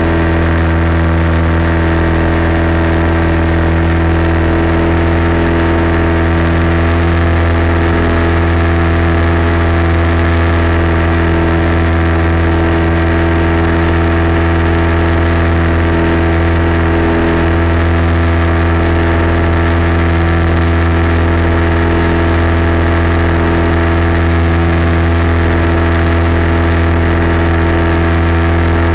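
Light aircraft's piston engine and propeller droning steadily in level cruise, heard loud inside the cockpit at an unchanging pitch.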